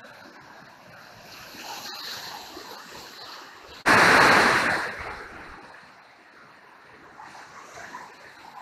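Niagara River gorge rapids rushing steadily, white water pounding over boulders. About four seconds in a sudden much louder rush of noise sets in and fades away over about a second.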